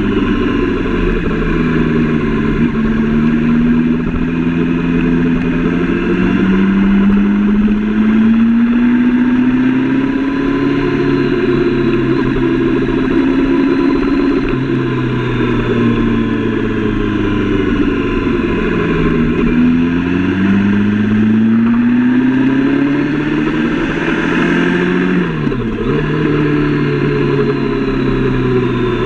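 Sport motorcycle engine heard from on the bike while riding: it rises in pitch as it accelerates and falls away as it eases off, again and again. About 25 s in and again near the end there are quick breaks in pitch as gears are changed.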